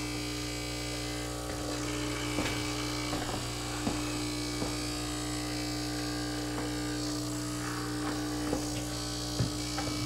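Vibratory pump of a De'Longhi Stilosa EC260 espresso machine buzzing steadily as it runs water through during the first-use rinse, with a few faint ticks.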